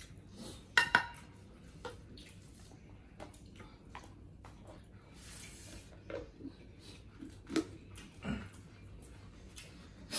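Clinks and knocks of plates, a bowl and a plastic serving spoon during a meal eaten by hand, with two sharp clacks about a second in and a few softer knocks later.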